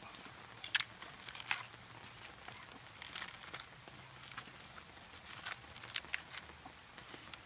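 Dog gnawing and tearing at a coconut's fibrous husk: irregular crackling rips as the husk fibres pull apart.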